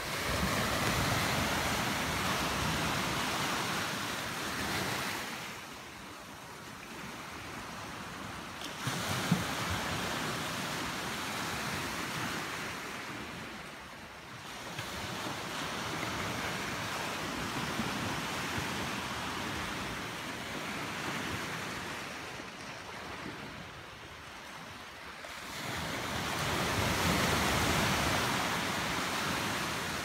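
Small Mediterranean waves washing onto the shore, the surf swelling and fading four times in slow surges several seconds apart. There is one brief sharp click about nine seconds in.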